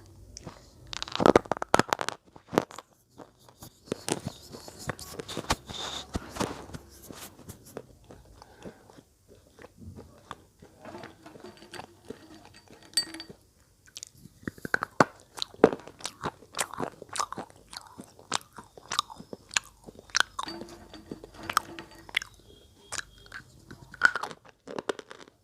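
Slate pencils being bitten and chewed close to the microphone: sharp, irregular crunches and crackles of the brittle slate breaking between the teeth, with a brief pause about halfway through.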